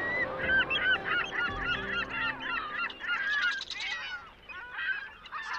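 A flock of birds calling, many short overlapping calls in quick succession, over a soft surf-like background.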